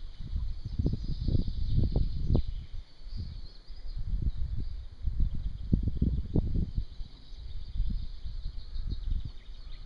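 Wind gusting against the microphone in uneven surges, with a faint high-pitched chirring in the background.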